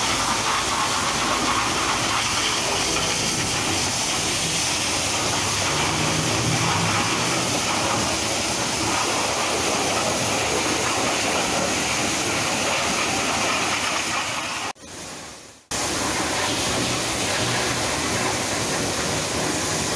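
High-pressure water spray hitting the underside of a car, a steady hiss that drops out for about a second roughly three-quarters of the way through.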